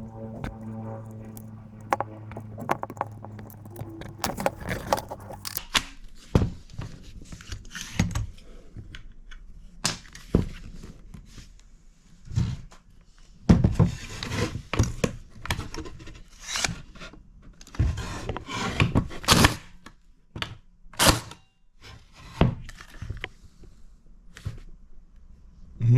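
Hands working on a battery stapler's parts: irregular knocks, clicks and scrapes of plastic and metal, some sharp and loud, with background music fading out in the first few seconds.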